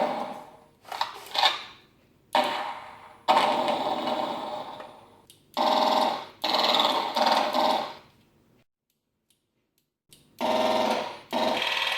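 Recorded gunfire sound effects played by the pulse rifle prop's electronic sound board through its small built-in speaker: first a few sharp shotgun-style blasts that die away, then steady bursts of rapid-fire pulse-rifle shooting, two of them around the middle and two more near the end after a short silence.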